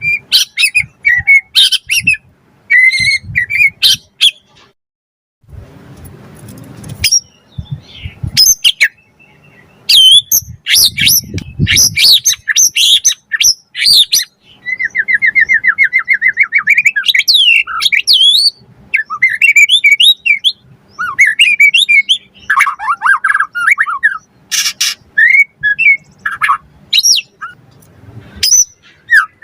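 White-rumped shama (murai batu) in full song: a fast, varied run of clear whistles, rapid trills and sharp chips, with a brief pause about four seconds in and a long rattling trill near the middle.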